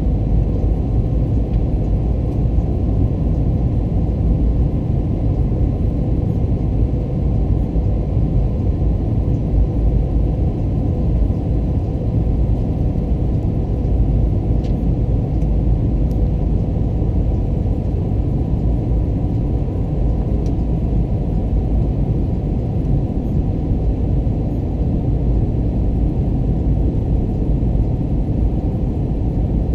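Steady low rumble of an Airbus A321 in flight on approach: engine and airflow noise picked up through the cabin window by a camera fixed to it, with a faint steady hum running through it.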